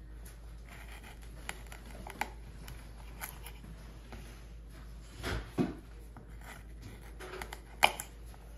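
Kitchen knife cutting small pieces off a raw carrot held in the fingers, with scattered crisp clicks and light knocks as the pieces are cut and dropped into a silicone mould. A soft thump comes a little past halfway, and a sharp click near the end is the loudest sound.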